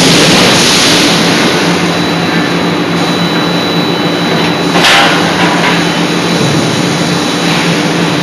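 C92K-80 CNC hydraulic forging hammer in operation: a loud, steady machine noise of humming and hiss, with one brief louder surge about five seconds in.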